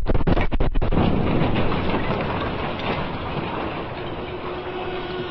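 Dynamite charges detonating in a rapid string of sharp cracks, ending about a second in. They give way to a dense rumble of the blast that slowly dies away over several seconds.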